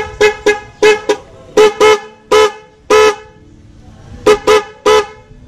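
MOCC dual high-low motorcycle horn, both horns connected, sounded in about a dozen short toots, some in quick pairs and triples, with a pause of about a second before the last three. With both horns wired it gives its full high-low sound, not the hoarse single-horn toot.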